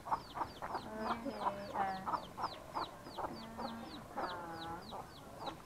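Chickens clucking, with a steady run of short, high, falling peeps about three or four a second.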